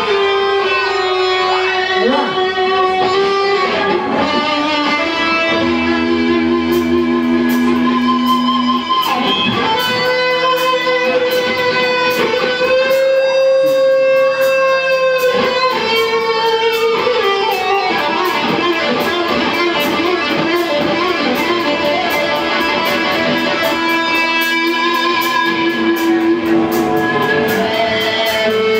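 Live rock band playing an instrumental passage with no vocals: electric guitar plays long held, wavering notes over the band, with a fast, steady high ticking joining about a quarter of the way in.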